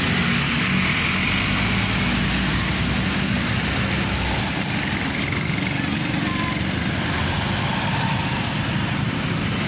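Passing street traffic: a light box truck's engine and motorcycles going by, a steady engine hum over road noise.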